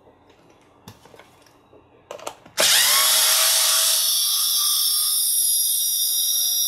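Small cordless electric screwdriver running steadily as it unscrews a wheel on an RC crawler's rear axle, starting abruptly about two and a half seconds in. A couple of light clicks from handling come before it.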